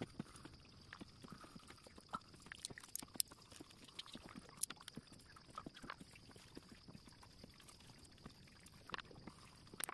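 Graphite pencil working on paper: faint, irregular small ticks and scratches as the point touches down and strokes during shading. A faint steady high whine sits under it.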